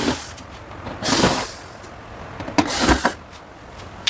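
Screws being worked out of the metal back cover of a Whirlpool dryer: three short scraping strokes about a second and a half apart.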